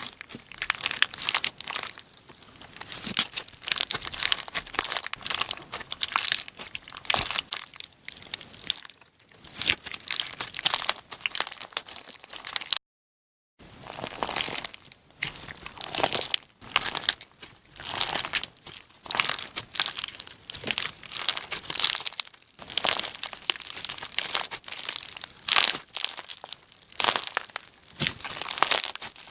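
Slime loaded with charms being squished and pressed, giving dense, rapid crackling and crunching clicks, with a brief break about halfway through.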